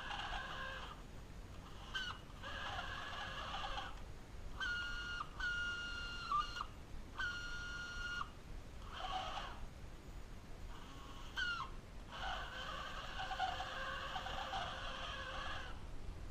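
Electric drive motor and gears of a 1986 New Bright remote-control 1957 Chevrolet Bel Air toy car whining in short runs as it drives and stops, several times over. A few runs start with a quick rise in pitch as the motor spins up.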